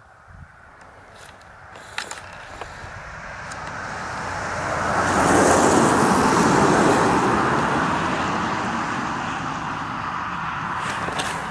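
A road vehicle passing by: a broad rushing noise that swells over a few seconds, peaks about halfway through, then slowly fades. A few light clicks sound in the first couple of seconds.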